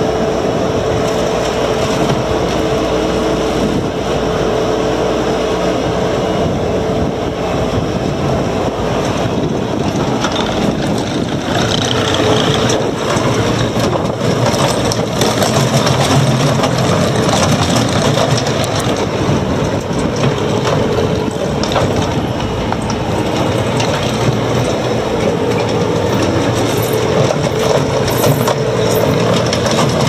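Bobcat T450 compact track loader's 61 hp Doosan diesel engine running steadily at working speed as the machine raises its bucket and drives on its rubber tracks.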